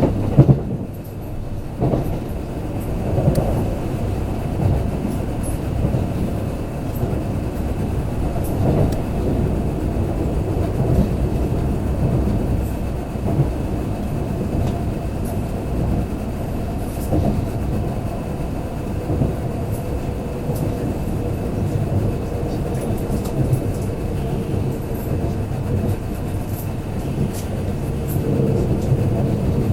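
Kintetsu limited express train running at speed, heard from inside the passenger car: a steady low rumble with occasional clicks.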